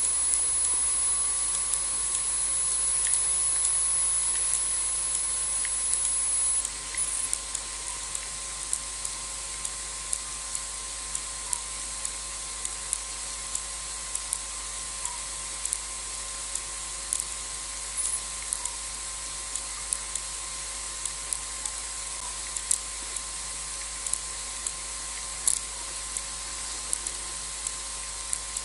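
Steady outdoor night ambience with constant hiss. A thin, high steady whine cuts off suddenly about six and a half seconds in, and faint scattered clicks and ticks run throughout. No lion calls are heard.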